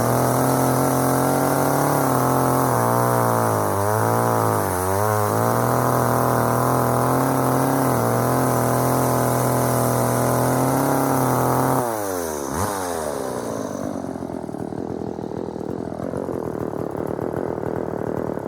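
The two-stroke engine of a McCulloch Pro Mac 435 chainsaw runs at full throttle, its pitch wavering a few times about three to five seconds in. About twelve seconds in the throttle is released and the engine drops quickly to idle. The owner judges its top speed a little low, with the high-speed mixture screw wanting a tad more.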